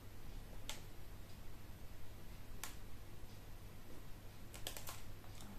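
Sparse, crisp little clicks of perlite grains being picked and rubbed off an alocasia corm by fingers: a few single clicks, then a quick run of them near the end, over a faint steady hum.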